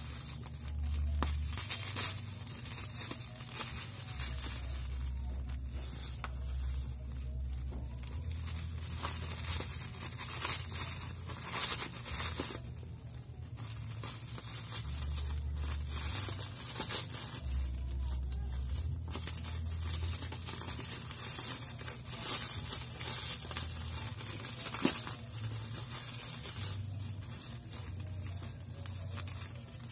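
Black plastic parcel wrap and packing tape crinkling, rustling and tearing as the parcel is cut and pulled open with scissors, in uneven bursts. A single sharp click comes late on.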